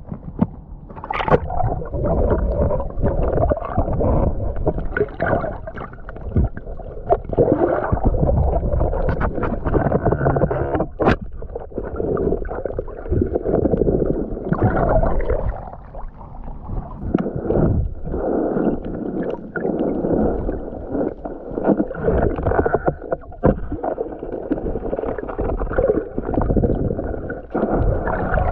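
Water sloshing and gurgling around a waterproof action camera in the sea, muffled and surging irregularly, with one sharp click about eleven seconds in.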